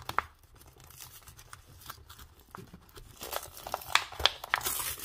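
A toy blind-pack being torn open by hand: the paper packaging crinkles with scattered crackles, building to denser, louder ripping in the last two seconds.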